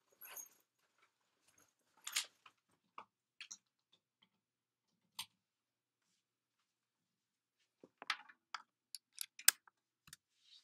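Scattered faint knocks, taps and rustles of a person moving about a small room, with a quick run of sharp clicks and taps near the end.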